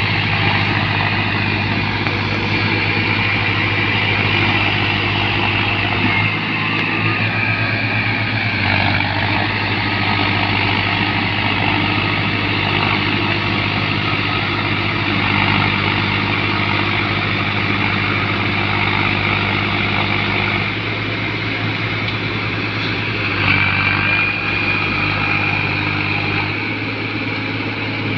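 Massey Ferguson 246 DynaTrack tractor's diesel engine running steadily while it pulls a rotavator through a wet paddy field. The engine note shifts slightly a few times.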